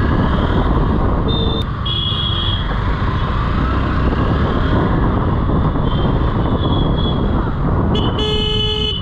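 Motorcycle engine running and wind rush while riding through town traffic, with vehicle horns honking: a short honk about a second and a half in, another just after two seconds, fainter ones midway, and a longer, louder honk near the end.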